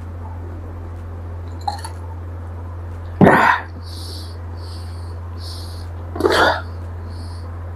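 A man's sharp, throaty exhalations after a swig of whisky: two loud bursts about three seconds apart, with short hissing breaths between them, over a steady low hum.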